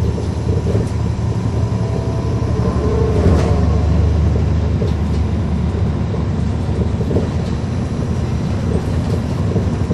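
A 2009 NABI 40-SFW transit bus under way, heard from on board: its Caterpillar C13 diesel engine and ZF Ecomat automatic transmission give a steady low rumble, with a thin steady whine from the axles. The sound swells briefly about three seconds in.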